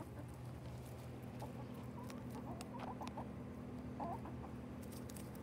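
Chickens feeding on spinach leaves scattered over dirt: light, irregular pecking taps and scratching, with a few soft clucks in the middle and again about four seconds in.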